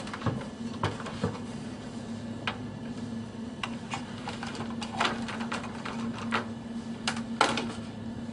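Cables and small items being handled and moved about on a wooden tabletop: scattered clicks and knocks, a few louder ones near the end, over a steady low hum.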